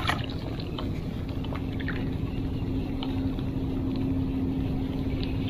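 Steady low hum and rumble of a boat motor running, with a few faint light ticks scattered through it.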